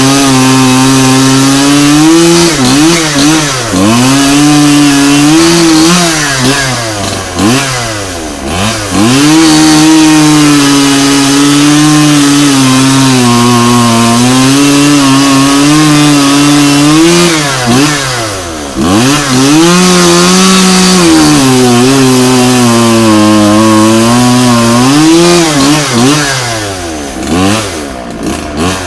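Two-stroke chainsaw running at high revs while cutting a dead tree, its engine pitch dipping and picking back up several times.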